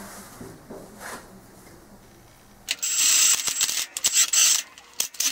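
Ratchet driving a chain-adjuster bolt into a dirt bike swingarm: a fast, high metallic ratcheting starting about two and a half seconds in, in a few runs with short breaks, after faint clicks of the bolt being turned by hand.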